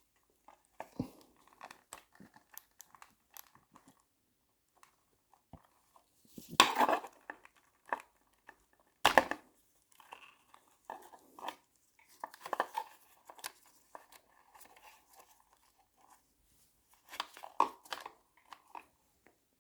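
Hands working at the plastic push-clip plugs and wiring loom of a motorcycle. Scattered clicks, rattles and rustling, with a louder scraping clatter about seven seconds in and a sharp one about two seconds later.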